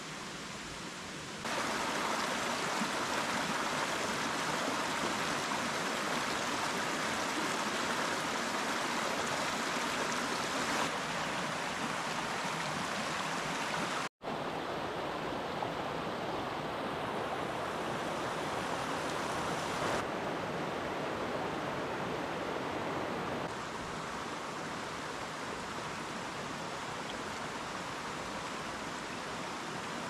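Shallow rocky stream rushing and splashing over rocks, a steady water noise whose loudness steps up or down a few times. It drops out for a split second about halfway through.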